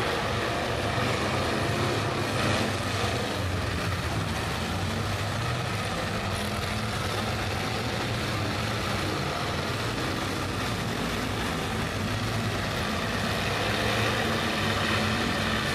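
Engines of several demolition derby cars running at once, a steady unbroken mechanical din with no distinct crashes.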